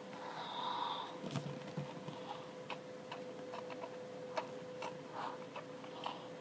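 Light scattered clicks of handling close to the microphone, with a soft thump about a second in, over a faint steady hum.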